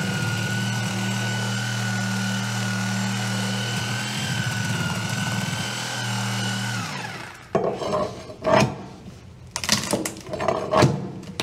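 Corded reciprocating saw running steadily as it cuts into the wooden base of the enclosure, winding down about seven seconds in. Then a steel pry bar knocks and scrapes against the wood in short, irregular strikes.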